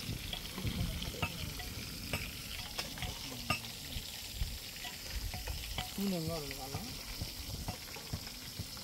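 Marinated chicken leg pieces deep-frying in hot oil: a steady sizzle with scattered pops and crackles.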